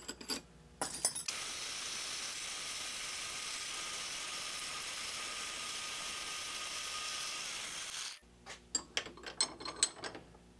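Brass thumbscrew held against a spinning buffing wheel on a bench grinder for final polishing: a steady hiss lasting about seven seconds. Light clicks and taps of the part being handled come before and after it.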